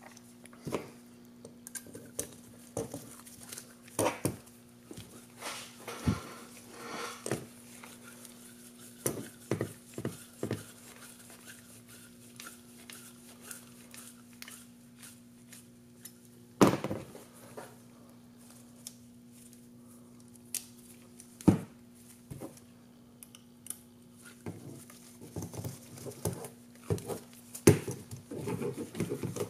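Scattered clicks and taps of small M3 screws and drone-frame parts being handled and screwed in by hand, with louder knocks every few seconds. A faint steady hum runs underneath.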